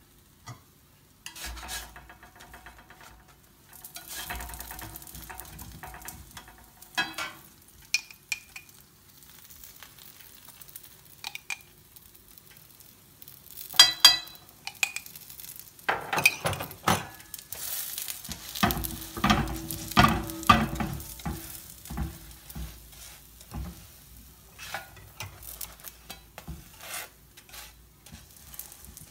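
Buns frying in ghee on a flat tawa griddle: sizzling, with scrapes and clinks from a metal spoon and a spatula. About halfway through there is a sharp clatter of clinks as more ghee is spooned on, and then the sizzling grows louder for a few seconds.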